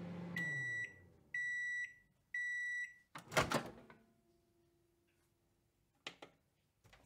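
Microwave oven hum winding down and stopping, then three high beeps about a second apart signalling that the cooking is done. A loud noisy burst follows as the door is opened, then two short clicks near the end.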